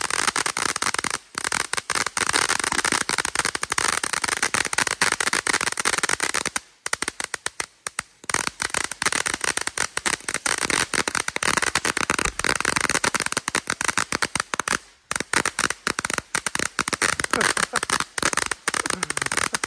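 Firework ground fountain spraying crackling sparks, giving off a dense, rapid crackle with a few brief lulls.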